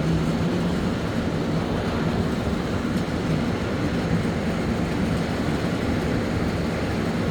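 Rain falling steadily, a dense unbroken hiss, with a faint low hum underneath.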